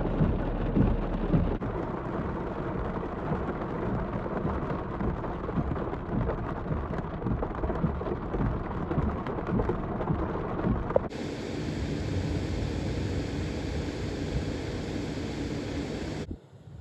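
Heavy rain and pea-size hail pelting a vehicle's roof and windshield: a dense patter of small hits over a steady rush. About eleven seconds in, the sound changes abruptly to a steadier, brighter hiss of rain.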